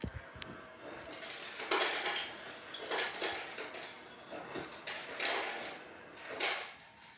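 Hockey card packs being handled and their wrappers crinkled: a click at the start, then several short bursts of rustling, the loudest about two seconds in.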